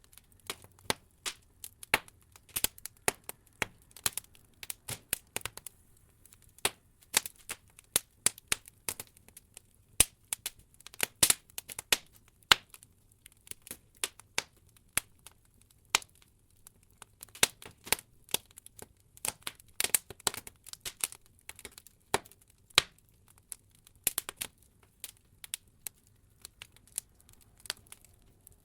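Wood logs burning in an open fireplace, crackling with irregular sharp pops and snaps that come in busy clusters, several a second at times, with quieter gaps between.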